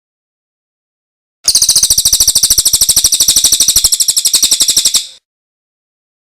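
Songbird giving a fast trill of sharp, high repeated notes, a dozen or more a second, for about three and a half seconds. It starts abruptly and cuts off abruptly, with silence before and after.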